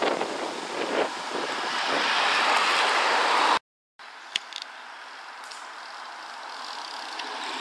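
A car approaching and passing on a road, its engine and tyre noise swelling to its loudest and then cut off abruptly about three and a half seconds in. After the break a second car is heard approaching more faintly, its noise slowly growing.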